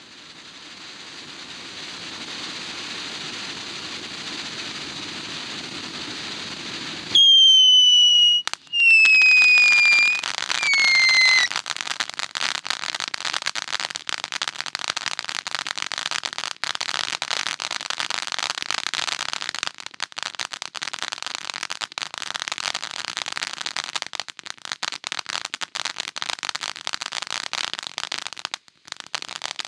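Red Rhino Puppy Love ground fountain firework hissing steadily as it sprays sparks. About seven seconds in it lets out three loud whistles in a row, each sliding slightly down in pitch. It then crackles densely until it burns out near the end.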